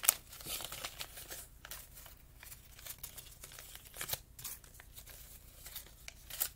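Paper banknotes rustling and crinkling in the hands in short, scattered rustles, with one sharp tap right at the start.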